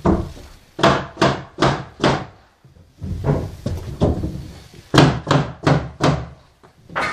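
Heavy knocks struck in runs of four, about two and a half a second, with a short pause between runs.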